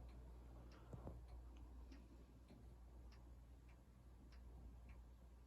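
A clock ticking steadily, about two ticks a second, over a faint low hum in a quiet room.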